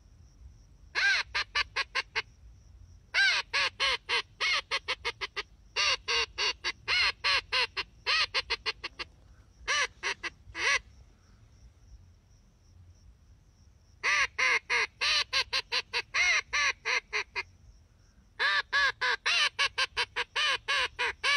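Reyoka duck call blown to imitate a Eurasian teal: rapid strings of short pitched notes, about six or seven a second, each slightly arching in pitch. They come in seven runs of one to three seconds, separated by short pauses.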